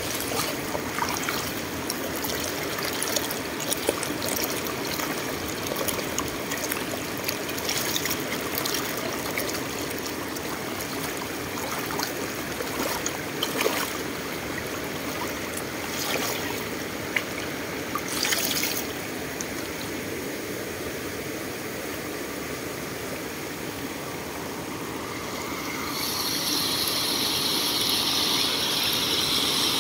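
Shallow water streaming and trickling over mossy stones, broken by scattered small splashes and knocks as a pole is worked among the stones. For the last few seconds a steadier, louder rush of water comes up.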